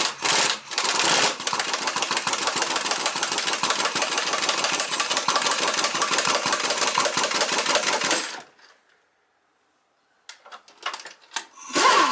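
Pneumatic impact wrench hammering as it backs out a bolt on a spring-loaded transmission cover: a few short bursts, then a steady run of about seven seconds that stops suddenly. A few metal clicks and knocks come near the end.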